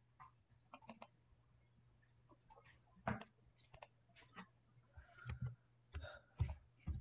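Faint, irregular clicking of a computer keyboard and mouse, a few clicks a second at most, over a faint steady low hum.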